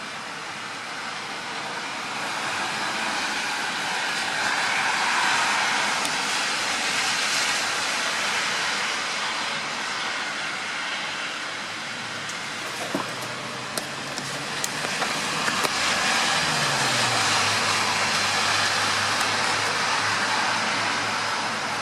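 Strong wind and rain: a steady hiss that swells and eases with the gusts. Past the middle come a few sharp taps, and a low hum sets in that drops slightly in pitch.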